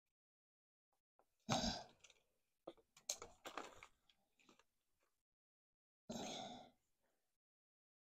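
Handling noise from hands working under a bicycle saddle to fit an alarm unit: two short rustling bursts, about a second and a half in and again about six seconds in, with a run of small clicks and scrapes between them.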